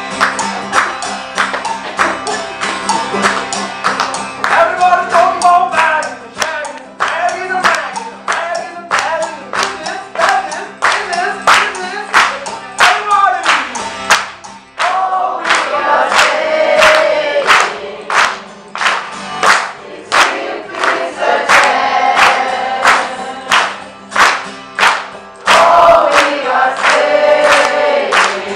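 A group singing along to a strummed acoustic guitar, with hands clapping a steady beat about twice a second.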